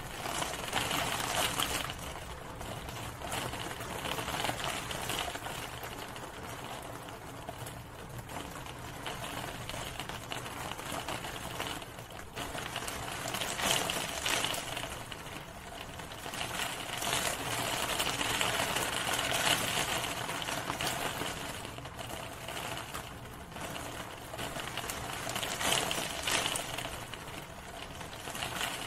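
Steady rain with a dense, rapid patter of drops tapping on a hard surface, swelling and easing in strength several times.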